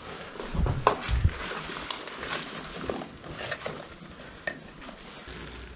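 Scattered clinks, knocks and scrapes of loose rubble and debris underfoot, with a few dull thumps in the first second or so.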